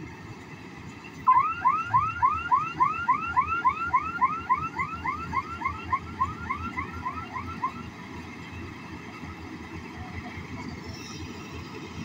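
An electronic alarm chirps rapidly, about four rising chirps a second, starting about a second in and stopping near eight seconds, over the steady running of a Kartar 4000 combine harvester's engine.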